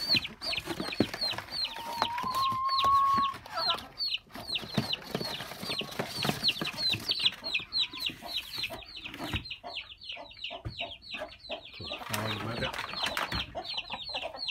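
Chicks peeping in a continuous stream of short, high, falling peeps, several a second, with a hen clucking among them and giving a longer call about two seconds in.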